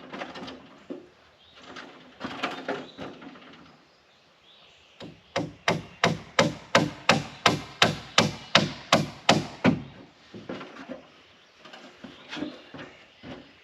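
Hammer driving nails into framing lumber: a fast, even run of about sixteen strikes, starting about five seconds in and stopping near ten seconds. Before it come scattered knocks of wood being handled.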